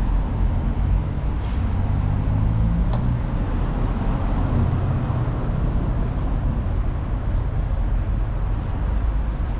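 Outdoor street ambience: a steady low rumble with no voices.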